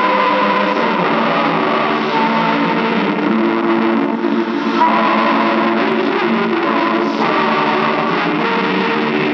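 Music with distorted electric guitar coming from the speaker of a 1940-era Warwick Troubador tube radio tuned to a broadcast station. The set is playing even though nearly every tube is dead and its capacitors are leaky.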